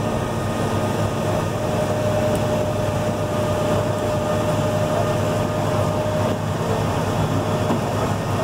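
An old tram, over 50 years in service, in motion: a steady low drone of its running, with a thin steady whine that stops about six seconds in.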